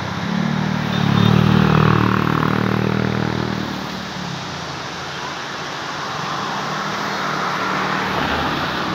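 A motor vehicle's engine passes close by, loudest about one to three seconds in, then fades. A second, fainter vehicle swells near the end, over a steady background rush.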